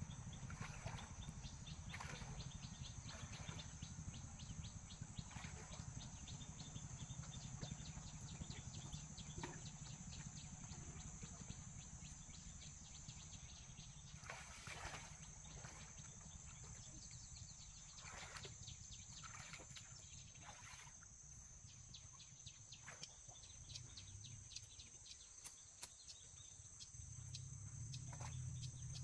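Steady high-pitched drone of insects, with scattered faint rustles and knocks and a low rumble underneath.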